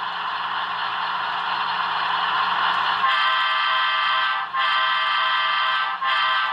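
HO-scale Broadway Limited Paragon 4 ES44AC sound decoder through its small speaker: a steady hiss over the idling diesel sound, then about three seconds in the chime horn starts the grade crossing signal: two long blasts and a short one, with a fourth long blast beginning near the end.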